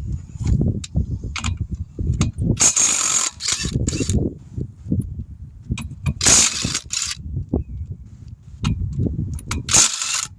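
Mechanical tool work on a car wheel during a tyre change: three short, harsh bursts of tool noise, with knocks and handling sounds between them and wind rumbling on the microphone.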